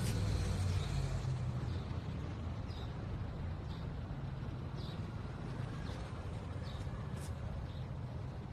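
Steady street traffic rumble, with a few faint short high chirps scattered through it.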